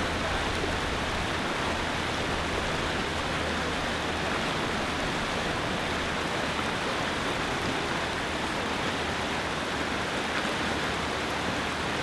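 River rapids rushing over rocks: a steady, even rush of whitewater.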